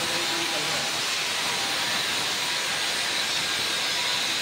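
Steady hiss with a faint high whine from a marble grinding and polishing machine at work.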